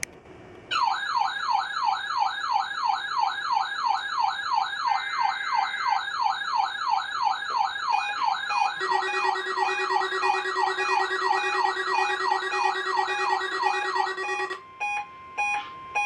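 NOAA weather radio receivers going off with their alert alarms for a Required Weekly Test. A loud warbling siren-like tone sweeps up and down about three times a second, and a second, steady alarm tone joins in partway through. Near the end the warble stops and short beeps follow.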